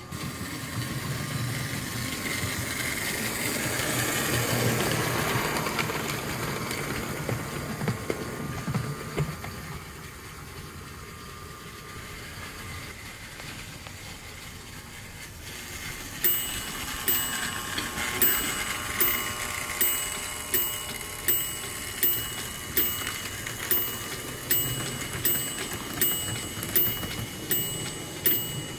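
An American Flyer S-gauge toy train running on metal track, its rumble growing louder about four seconds in and then fading away. From about halfway through, a toy railroad crossing signal sounds a sharp, briefly ringing tick about once a second as its lights flash.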